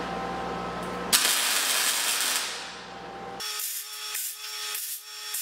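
MIG welder striking an arc for a tack weld on the corner of square steel tubing: a sudden crackling hiss about a second in that lasts about a second and a half, after a steady low hum. After that come short, regularly spaced rasping bursts.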